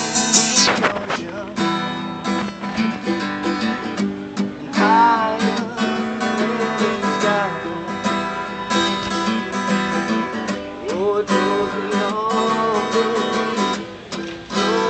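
Acoustic guitar strummed and picked steadily, playing a song's instrumental passage.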